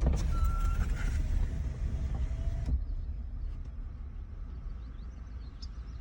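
Low rumble of a vehicle on the move. A hiss lies over it for the first two and a half seconds or so, then cuts off suddenly.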